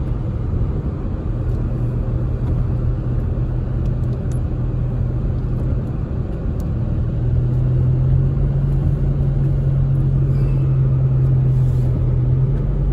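Steady drone of a car heard from inside the cabin while driving on a wet road: a low engine and road hum under the hiss of tyres on wet pavement, growing louder about seven seconds in.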